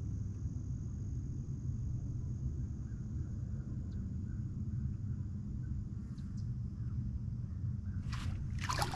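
Steady low rumble, then near the end a hooked crappie splashing at the water's surface as it is brought to the boat, in two short splashes.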